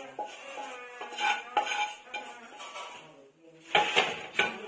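Spatula scraping and clanking against a wok as cooked stink-bean pickle is scraped out onto a steel plate, followed by a few louder metal clanks near the end as the wok is set back down on the stove.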